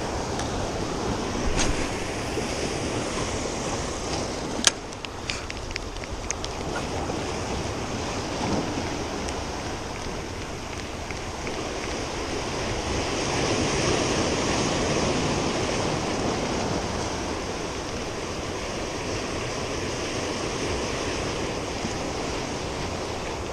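Surf washing in over a rocky shore, with wind on the microphone. It swells louder in the middle. Two sharp clicks come about two and five seconds in.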